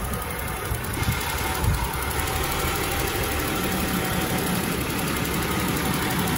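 Jaguar XJS 4.0-litre straight-six engine idling steadily, warmed up, heard close to the open engine bay. A steady low hum joins the idle about halfway through.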